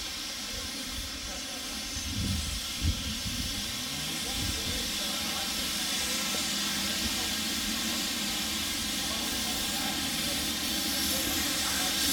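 Steam locomotive letting off steam, a steady hiss that grows slightly louder toward the end, with a single thud about three seconds in.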